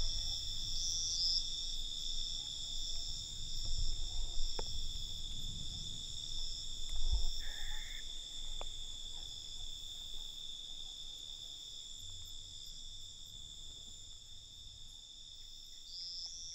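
Crickets trilling steadily, several high trills layered together. Under them is a soft low rumble that is strongest in the first half and then fades away.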